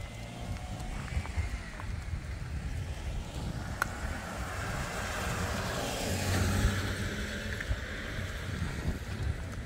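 A small pickup truck passing on the road, its tyre and engine noise building up and fading away, loudest about six to seven seconds in.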